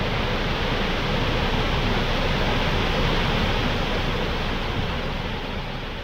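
Iadolina waterfall pouring into its plunge pool: a steady, dense rush of falling water, easing off a little near the end.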